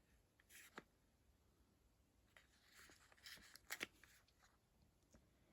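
Near silence with faint handling noises of a small product and its packaging: a light click just under a second in, then soft rustling and a few taps around three to four seconds in.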